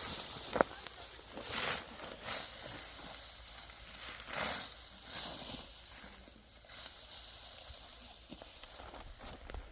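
Dry wheat stalks being cut and gathered by hand, giving a series of irregular dry, hissing swishes and rustles.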